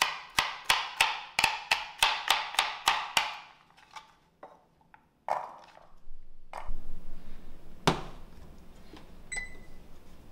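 Chef's knife chopping carrots into coins on a cutting board, the blade knocking on the board about four times a second for the first three seconds, then a few slower cuts. Near the end comes one more knock and a short beep.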